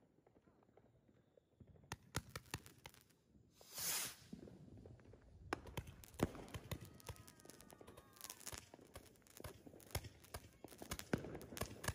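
Consumer fireworks going off: sharp pops and clicks start about two seconds in, with a brief rushing hiss around four seconds. After that comes dense, irregular crackling and popping.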